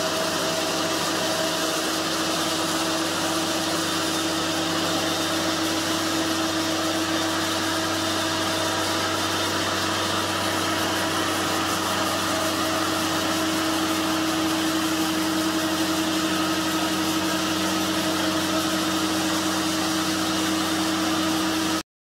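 Cook's sawmill engine running steadily at a constant pitch, with no revving; the sound cuts off suddenly near the end.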